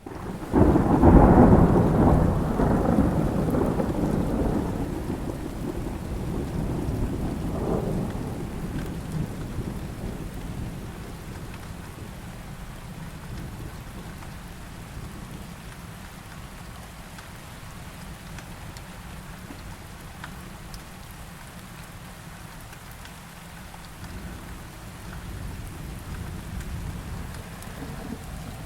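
Thunderstorm: a loud clap of thunder about half a second in, rumbling and fading over several seconds, a smaller roll around eight seconds in, and steady rain hissing on a surface throughout, with distant thunder rising again near the end.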